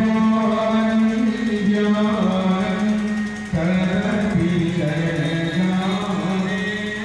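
Harmonium playing devotional music: a steady low held note under a moving melody.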